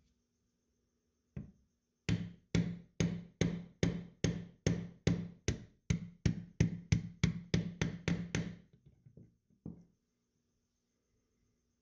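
A hammer tapping a brass punch to drive out the magazine catch pin of an SMLE Mk III* rifle's trigger guard. After one first knock comes a steady run of about seventeen sharp strikes, roughly two and a half a second, ending in a few lighter taps.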